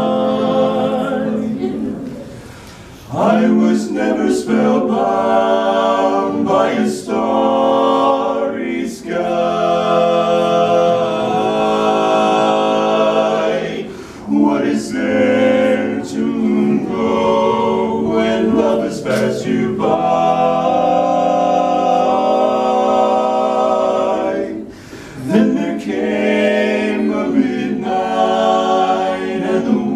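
Male barbershop quartet singing a cappella in four-part close harmony, holding sustained chords, with two short pauses, one about two and a half seconds in and one about twenty-five seconds in.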